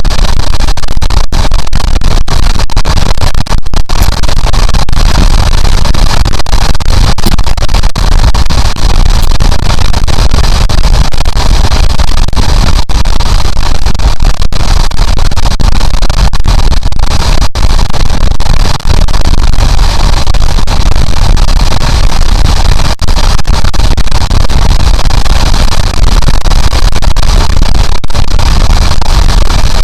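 Wind rushing over the microphone of a Honda CB750 motorcycle riding at highway speed: a loud, steady, distorted rush with short dropouts, and no clear engine note standing out.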